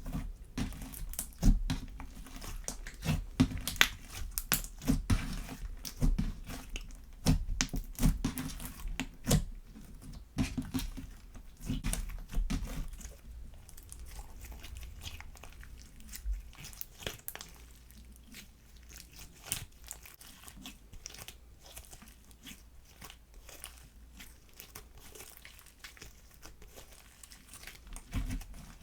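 Slime being squished, stretched and mixed by hand, making a dense run of sticky clicks and pops. It is busier and louder in the first half and turns fainter and sparser after about halfway.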